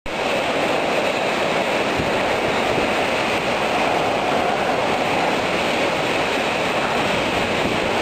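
Typhoon wind and heavy wind-driven rain: a loud, steady rush of rain and gusting wind.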